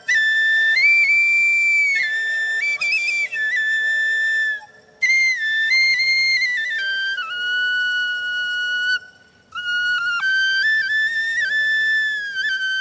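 Solo flute melody of high held notes stepping up and down, with two short breath pauses, about five and nine seconds in.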